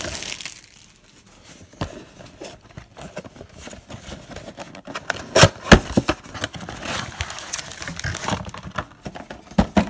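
Cardboard trading-card box being handled and opened by hand, then its card packs taken out: scattered rustling, scraping and light taps, with two sharp clicks about halfway.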